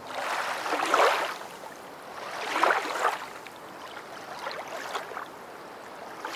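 Surf washing in and drawing back, with a swell of rushing noise about a second in, another near three seconds, and a weaker one around five seconds.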